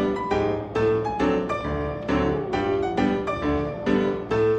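Background piano music, notes and chords struck in an even rhythm of about three a second.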